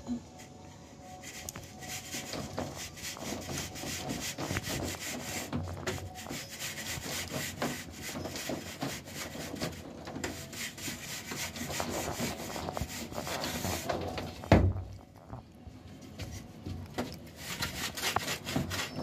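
A straight edge scraping back and forth across wet cement plaster on a ceiling as the plaster is levelled, a continuous rough rubbing made of many short strokes. There is one sharp knock about three-quarters of the way through, followed by a quieter spell before the scraping resumes.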